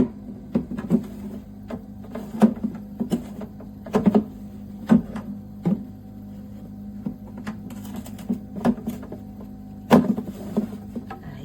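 Irregular plastic knocks and clunks from handling a BougeRV portable compressor fridge's lid and removable divider, over a steady low hum from the fridge's compressor.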